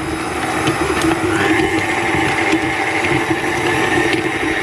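Stand mixer running steadily, its beater turning a crumbly almond-and-butter dough in a steel bowl: a continuous motor hum with a higher whine above it.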